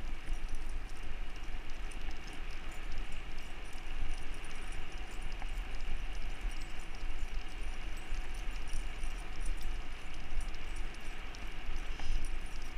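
Two huskies running on asphalt: a light, irregular patter of paws and a jingle of tags and harness hardware over a steady rush of wind and movement noise on the microphone.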